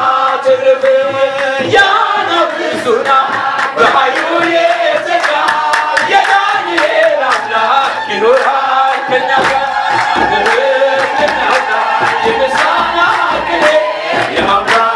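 Ethiopian Orthodox zimare (hymn): a male lead voice sings through a microphone and a group of men answer in chorus. A steady percussive beat runs under the singing throughout.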